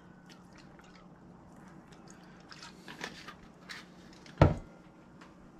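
Soy sauce being poured from a bottle over raw meat in a bowl: a faint trickle with scattered small clicks of bottle handling, then a single sharp knock about four seconds in, the loudest sound.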